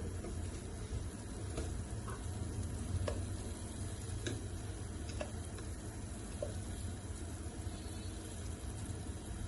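Cooking on a stove: a steady low rumble with a few light clicks and taps of a utensil, about one a second.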